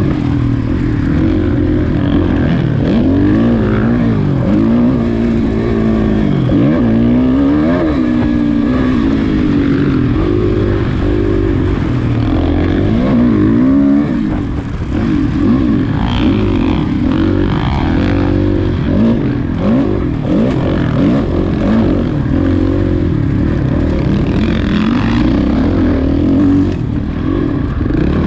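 Off-road race bike's engine under hard riding, its pitch climbing and dropping again and again as the throttle is worked and gears change, with a brief lull about halfway through.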